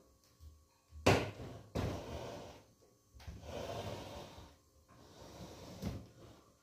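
A refrigerator being shoved across a ceramic tile floor: a sharp knock about a second in, then stretches of scraping as its feet slide over the tiles, and another knock near the end.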